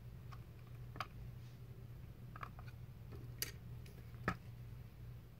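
A few light, sharp clicks and taps, about five spread unevenly, from a plastic model car and its parts being handled and set down, over a faint steady low hum.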